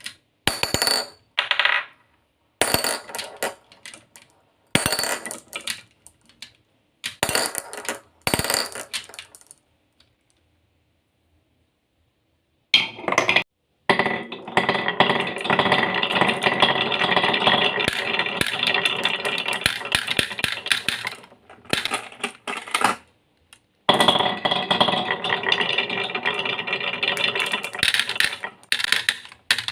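Marbles rolling and clattering down a marble run: short rattling runs and clicks over the first ten seconds, a brief pause, then two long stretches of dense, continuous rattling as many marbles run down the track together.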